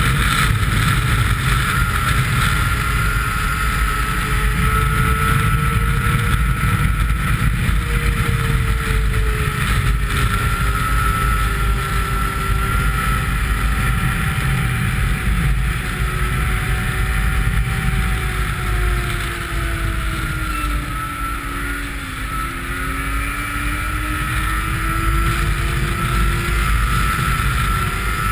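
Snowmobile engine running at speed, with heavy wind rush on the microphone. About twenty seconds in the engine note falls and the sound eases, then it climbs again.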